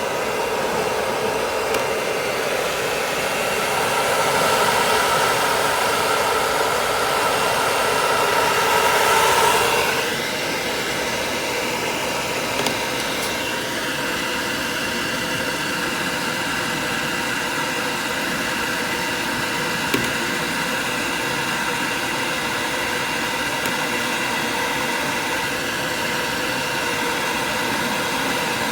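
Hair dryer blowing steadily while a toy poodle's coat is dried, a steady rush of air with a motor hum; its sound shifts and drops a little about ten seconds in.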